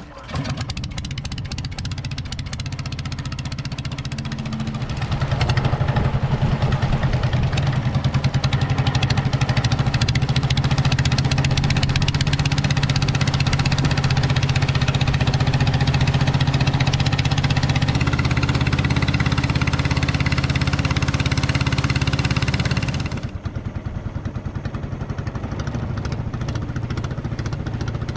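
Engine of a small wooden motorboat running under way. It rises to a higher, louder speed about five seconds in, holds steady, then drops back to a lower speed about 23 seconds in.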